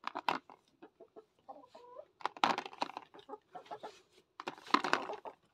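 Chickens clucking in short bursts, with a brief pitched call just under two seconds in.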